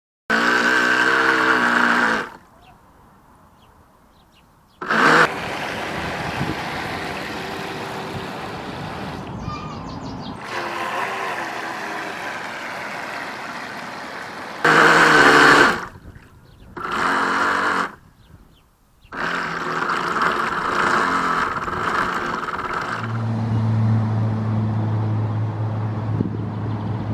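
Radio-controlled speedboat running hard on the water: its motor whine over a hiss of water and wind noise, in several short stretches that cut in and out abruptly. A steady low hum takes over from about two-thirds of the way in.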